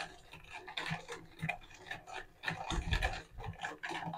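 A spoon stirring sugar into lemon water in a jug, making faint, irregular clicks and scrapes against the container.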